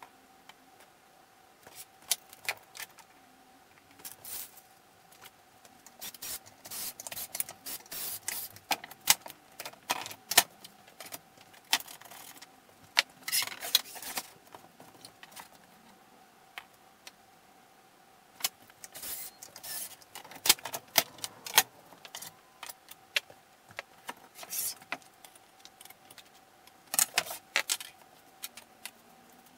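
Thin wooden strips being handled and laid out on a table into a frame: irregular clatter and knocks of wood on wood and on the tabletop, coming in clusters, over a faint steady hum.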